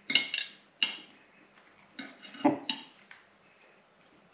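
A metal utensil clinking against the inside of a glass jar of pickled yabbies as pieces are fished out: a run of sharp, briefly ringing clinks, several in the first second and more around two to three seconds in.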